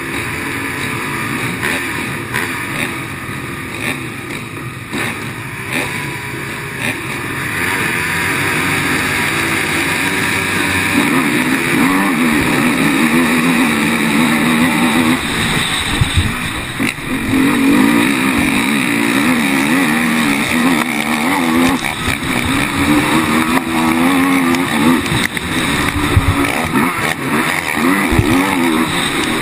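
Racing quad engines heard from an onboard camera, revving up and down continuously as the quad races along the dirt track with other quads close by. The engine sound grows louder and harder-worked about a quarter of the way in.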